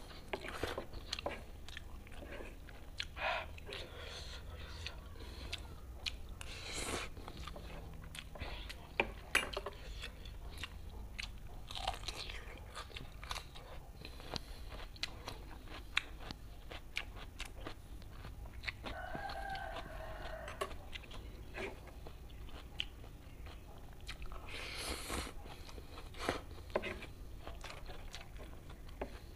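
Close-miked eating: chewing and slurping spicy fried instant noodles, crunching bites of raw cucumber, with spoon and fork clicking on the table between mouthfuls.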